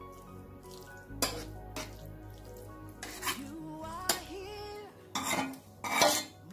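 Metal serving spoon scraping and clinking against a baking dish as minced-beef sauce is spread and levelled, about half a dozen separate scrapes and knocks, the loudest near the end. Soft background music plays underneath.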